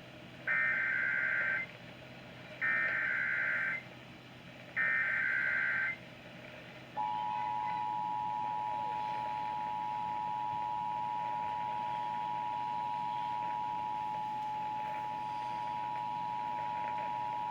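Emergency Alert System activation tones: three short bursts of warbling digital data (the SAME header), then the two-tone attention signal, a steady two-pitched tone held for about ten seconds. They open a broadcast alert, here a severe thunderstorm warning.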